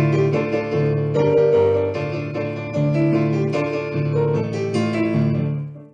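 Digital piano playing an upbeat instrumental interlude, chords over a bouncing bass line, stopping just before the end.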